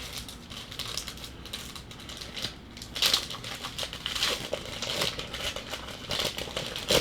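Trading-card pack wrapper crinkling as it is torn open and handled, in irregular rustles that grow louder about three seconds in.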